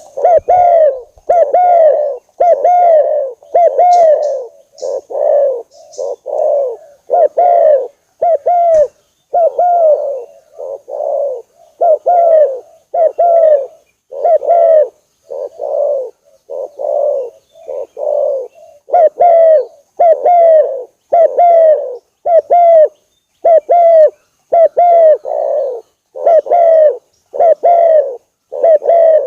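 Spotted doves (tekukur) cooing: a steady, unbroken run of short low coo notes, roughly one every 0.7 seconds.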